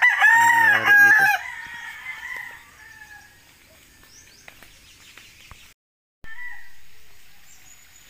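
A rooster crowing once at the start, a call of about a second and a half that trails off.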